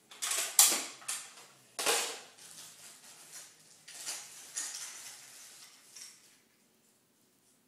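Plastic clicks and clattering as a toy foam-dart blaster and its darts are handled and loaded, with the sharpest rattles in the first two seconds and softer handling noise after them.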